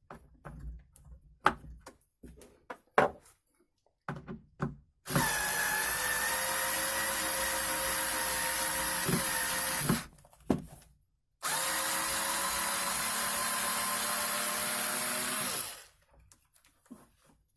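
Electric drill boring into wood in two long, steady runs at constant speed, with a short stop between them; a few light handling clicks and knocks come before the first run.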